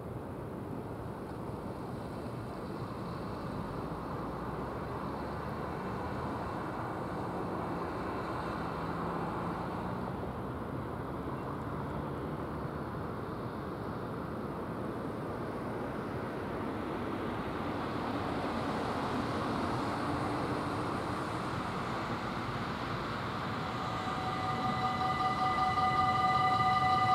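Steady outdoor rumble that slowly grows louder, then near the end a level-crossing warning bell starts ringing with a steady, high, several-toned sound: the crossing has activated for an approaching train and its barriers are about to lower.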